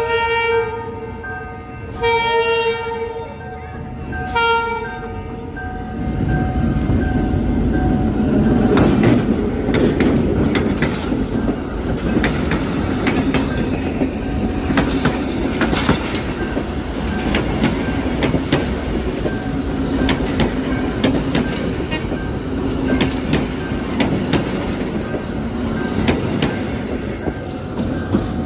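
Diesel locomotive horn sounding: a blast that ends just after the start, then two short blasts about two seconds apart. From about six seconds in, the train rumbles along with clicking of wheels over the rail joints.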